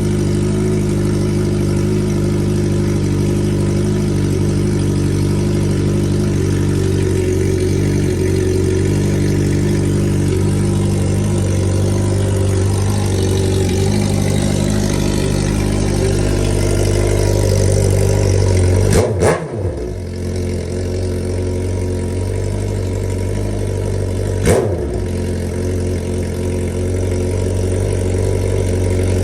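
Suzuki GSX-R1000 sport-bike's inline-four engine idling steadily, with two short knocks about two-thirds of the way through and again some five seconds later.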